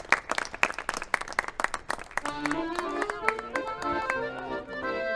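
A small crowd clapping by hand. About two seconds in the applause thins out and instrumental music with a stepping melody starts, with a few claps still over it.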